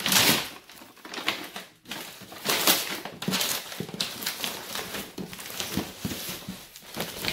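Brown wrapping paper crinkling and rustling as it is pulled away from a cardboard box, then the cardboard box scraping and knocking as it is shifted and tipped by hand, in irregular strokes, loudest at the very start.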